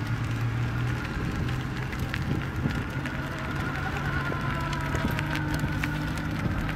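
Electric Formula Student race car driving slowly on asphalt: a steady drivetrain hum with a thin whine that drifts slightly in pitch, and scattered small ticks.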